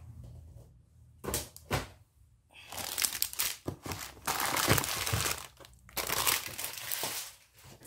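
Clear plastic cellophane packaging crinkling in several bursts as craft packs are picked up and moved aside on a tabletop.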